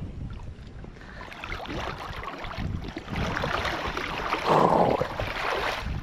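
River water splashing and sloshing around a landing net that holds a freshly caught brown trout, with a louder splash about four and a half seconds in.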